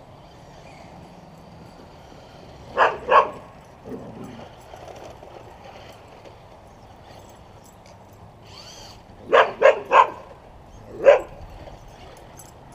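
Blue heeler (Australian cattle dog) play-barking while it chases an RC car: two barks about three seconds in, then three quick barks around nine to ten seconds in and one more a second later.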